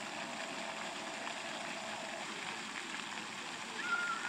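Ground-level jet fountains of a splash pad spraying water that splashes back onto the wet paving: a steady rushing of water.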